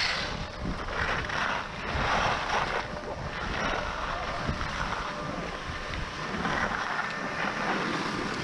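Skis sliding and scraping over groomed snow during a downhill run, with wind rushing over the microphone. The hiss rises and falls in swells about once a second in the first few seconds, then runs more evenly.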